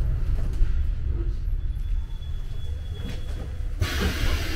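Budapest M1 Millennium Underground metro car running, heard from inside the carriage: a steady low rumble from the wheels and running gear. Near the end a steady hiss comes in suddenly.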